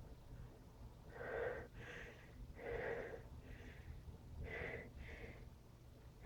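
A person breathing in short, faint, breathy puffs: about five breaths, some in quick pairs.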